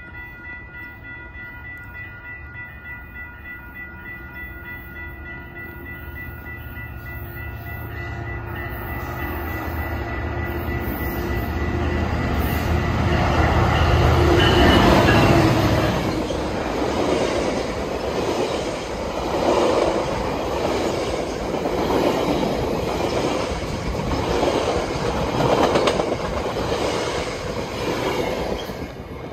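A GO Transit MPI MP54AC diesel locomotive and its bi-level commuter coaches passing close by. The engine rumble builds as the train approaches and is loudest as the locomotive goes by about halfway through, then the coaches roll past with a rhythmic clatter of wheels, peaking about every two seconds, until the cab car passes near the end.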